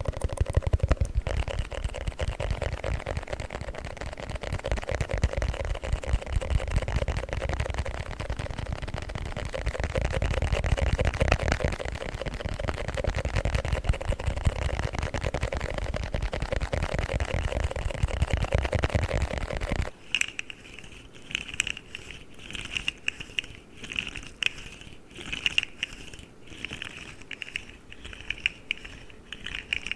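An empty plastic cream package handled in a dense run of fast crackles; about twenty seconds in it stops and gives way to a fidget slug toy making quieter, separate clicks, about one or two a second.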